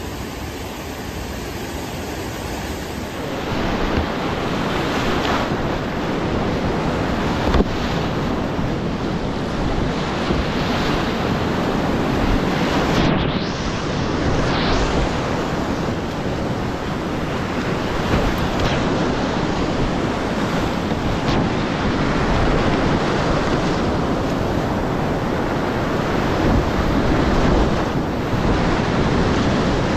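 Whitewater cascade rushing loudly and steadily, with wind buffeting the microphone. It gets louder about three and a half seconds in.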